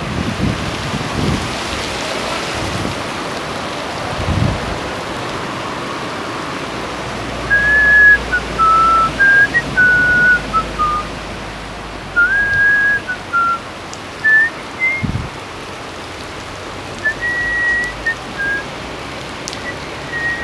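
Steady heavy rain. From about seven seconds in, a slow run of whistled notes, each held briefly and stepping up and down like a tune, is louder than the rain, and there are a few low thumps.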